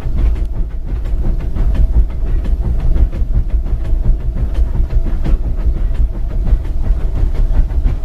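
Steam locomotive running along the track: a steady low rumble with a quick, irregular clatter of wheels and running gear and a light hiss of steam.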